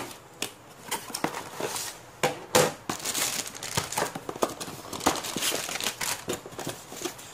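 A product box being opened and its packaging handled: paper and plastic crinkling and rustling, with many short clicks and taps.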